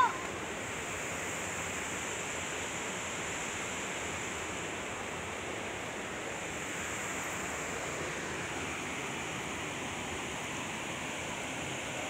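Steady rush of a shallow rocky stream, water flowing and splashing over granite boulders below a waterfall. A brief voice cry comes right at the start.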